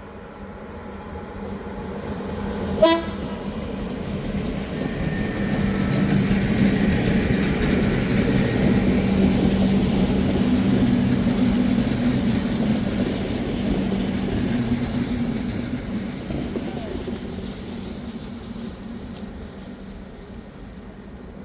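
A train passing: a short horn toot about three seconds in, then the rumble of the train and its locomotive's steady hum growing louder, peaking mid-way and fading away as it moves off.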